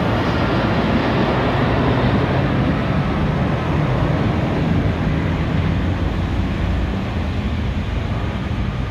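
Boeing 757-236(SF) freighter's twin jet engines at takeoff-climb thrust, a loud, steady rumbling jet noise heard from the ground. It slowly fades and loses its higher part over the last few seconds as the aircraft climbs away.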